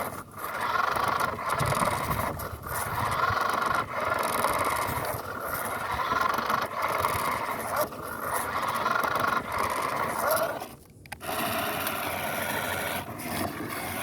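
Toy-grade RC car's small electric motor and gearbox running hard under load, its wheels spinning and scraping in sand as it struggles to get unstuck. It comes in repeated bursts of about a second and a half, with brief breaks between them and a longer stop about eleven seconds in.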